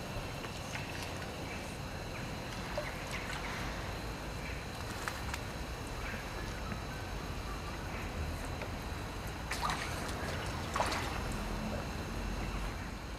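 Lake water lapping and sloshing around wooden jetty posts, with two short, louder splashes about ten and eleven seconds in.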